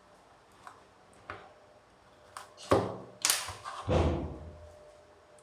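A package being cut open with a utility knife: a few light clicks, then sharp slicing and ripping of tape and cardboard about three seconds in, followed by a dull thump.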